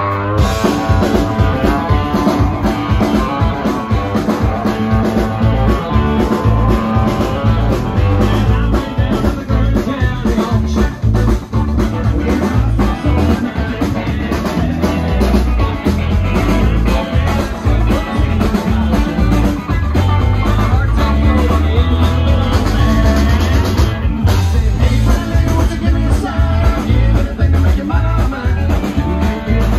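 Rock music with guitar, bass and drums and a singing voice, loud and continuous.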